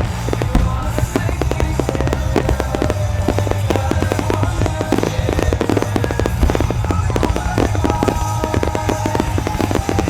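Fireworks finale: a dense, continuous run of rapid bursts and crackles over a low rumble, with music playing underneath.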